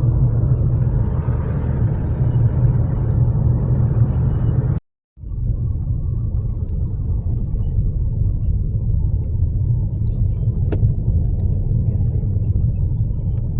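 Steady low road and engine rumble heard from inside a moving car, cut off abruptly for about half a second about five seconds in, then resuming.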